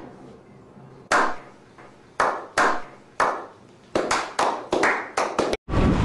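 A slow hand clap that speeds up. Single claps come about a second apart, then quicken to several a second, each with a short ringing tail. Just before the end it cuts to motorbike and street traffic noise.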